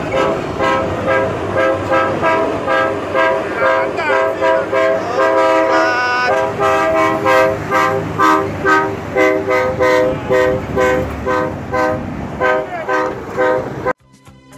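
Semi-truck air horns honking in a salute, several horns sounding together in loud short blasts repeated about two or three times a second. Near the end the horns cut off and music begins.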